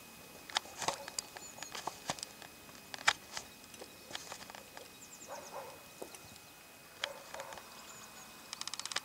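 Faint small-bird calls, short high chirps, with scattered soft clicks and knocks. Near the end comes a rapid clicking trill that sounds like a fishing-reel ratchet but is a bird.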